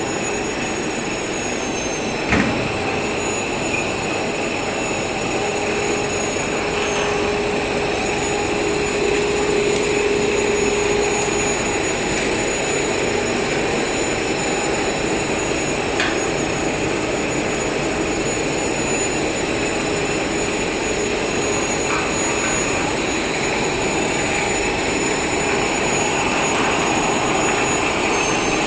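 Stretch film machine running: a steady, loud mechanical noise with a constant high whine, broken by a sharp knock about two seconds in and a few lighter clicks later.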